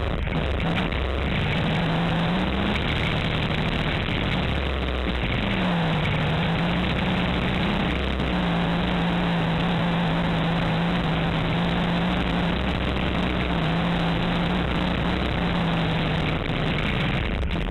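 Kawasaki Teryx4 800 side-by-side's V-twin engine running under way, heard from the rear seat of the open cab over a steady rush of wind and trail noise. Its pitch rises briefly a couple of seconds in and dips and climbs back again around six seconds in, then holds steady.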